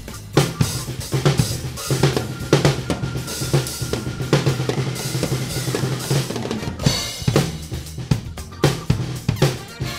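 Acoustic drum kit played in a busy, driving groove: bass drum, snare and hi-hat with cymbal crashes, many strokes a second.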